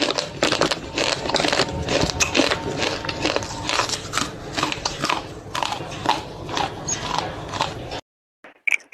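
Slate pencil being bitten and chewed: dense, irregular dry crunching and cracking that cuts off suddenly near the end.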